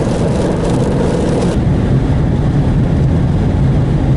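Car driving on a highway: steady engine and road noise with a low hum. The higher hiss drops away about a second and a half in.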